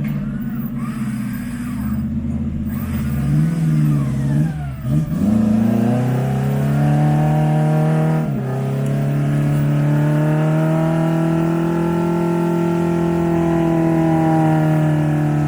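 An off-road 4x4's engine running hard under load. The revs dip and climb again a few seconds in, then stay high and steady with slow rises and falls in pitch.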